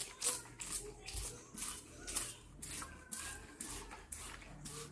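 Hand-held trigger spray bottle misting water onto fabric in quick repeated spritzes, about two or three a second.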